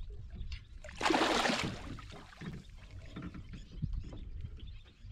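Water splashing as a hooked fish is hauled to the surface on a hand line beside a wooden boat: one loud splash about a second in, then small splashes and knocks.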